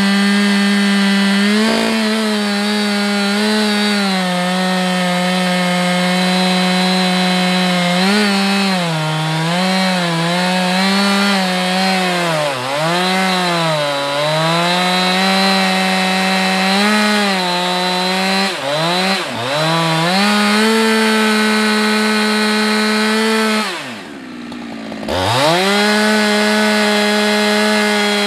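Husqvarna 365 X-Torq two-stroke chainsaw running at full throttle, cutting into a large sycamore trunk. The engine note dips again and again as the chain bogs down under load in the cut. Near the end the revs fall away sharply for about a second, then climb straight back up as cutting resumes.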